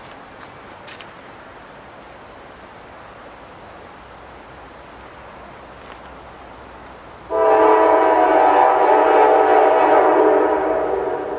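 Diesel locomotive air horn of an approaching Norfolk Southern freight train, sounding several tones at once in one long blast for the grade crossing. It starts suddenly about seven seconds in and trails off near the end.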